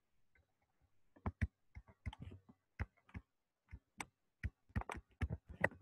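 Pen stylus tapping and scratching on a tablet surface while handwriting: a faint, irregular run of quick clicks, starting about a second in.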